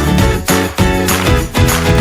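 Upbeat background music with a steady beat and bright jingling percussion.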